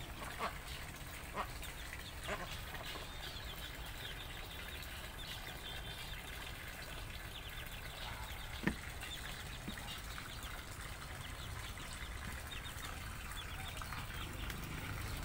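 Faint farmyard poultry sounds: chickens clucking, over steady high chirping. A few sharp clicks stand out, the loudest about two-thirds of the way through.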